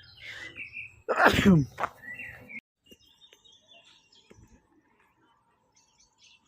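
A man sneezing once, loudly, about a second in; the voiced part falls in pitch. Quieter breathing sounds come just before and just after it.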